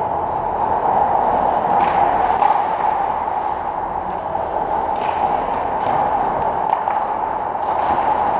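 Steady indoor ice-rink ambience: a constant hum and hiss of the arena, with a few soft scrapes now and then.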